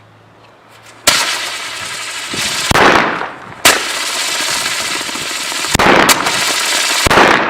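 Firework rocket burning: it starts suddenly with a loud hiss and crackle about a second in, with several sharp bangs, and stops shortly before the end.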